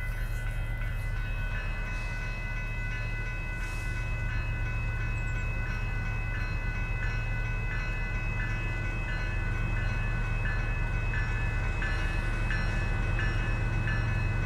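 Grade-crossing warning bell ringing in a steady repeated beat, over the low rumble of an approaching diesel locomotive that grows slowly louder.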